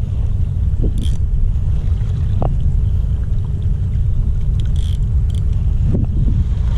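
Steady low rumble of wind buffeting the microphone over choppy sea water, with a few short clicks or splashes about a second in and again near five seconds in.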